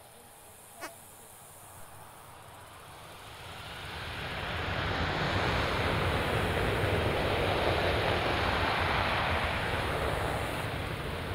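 Jet noise from a Boeing P-8 Poseidon's twin CFM56 turbofan engines as it rolls along the runway. The noise builds from faint to loud a few seconds in and eases slightly near the end.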